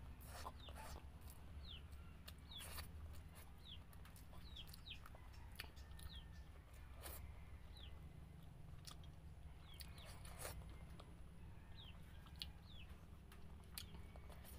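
Faint chickens peeping in the background: short, high, falling chirps that come every second or so. There are scattered soft clicks of chewing or utensils and a low steady hum.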